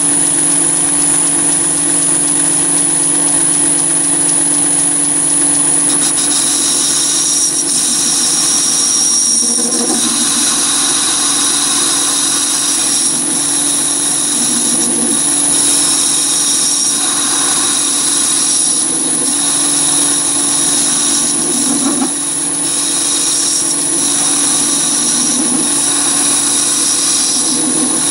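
Chinese mini lathe running with a steady motor whine while a diamond-shaped carbide insert plunges V-grooves into a stainless steel bar. The cutting noise comes in about six seconds in and comes and goes as the tool is fed in and backed off. The stainless is cutting cleanly.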